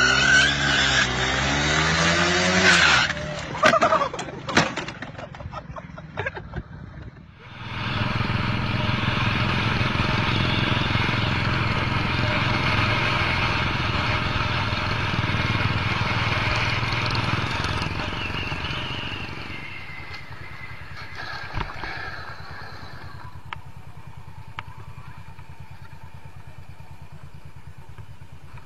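Motorcycle engine running steadily at road speed with wind rush, heard from a camera on the bike; it drops quieter about twenty seconds in. In the first few seconds, a scooter engine revs with a few sharp clatters.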